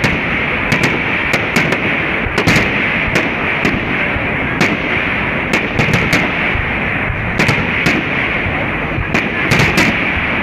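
Aerial firework shells bursting in a rapid, irregular series of sharp bangs, one to three a second, over a continuous din.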